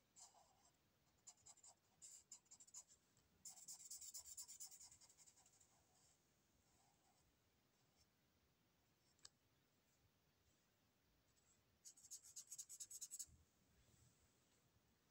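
Faint scratching of a felt-tip marker being stroked back and forth across paper while colouring in. The strokes come in several short bouts with quiet pauses between, and there is one sharp click about nine seconds in.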